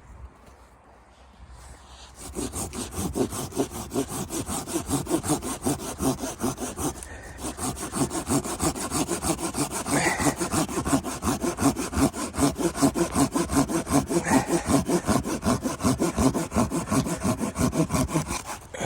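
Hand saw cutting wood in quick, even strokes, about three a second. It starts about two seconds in, pauses briefly about a third of the way through, and stops just before the end.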